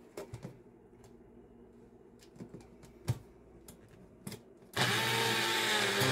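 A few light plastic clicks and knocks as the cup is fitted, then about three-quarters of the way in a personal bullet-style blender's motor starts abruptly and runs loud and steady, blending frozen banana pieces.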